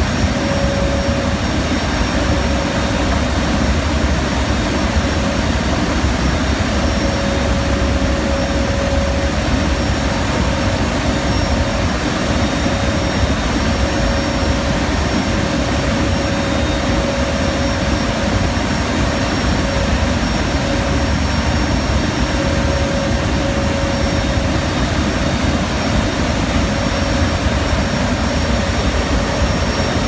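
Steady, loud roar inside a C-130H's cargo hold from its four Allison T56 turboprop engines, mixed with wind rushing past the open rear cargo door, with a steady droning tone running through it.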